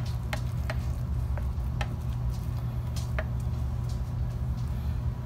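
Black plastic spoon pressing and patting down a crumbly mixture of cooked ground meat, bacon and crackers in a slow-cooker crock, giving scattered light clicks and taps, over a steady low hum.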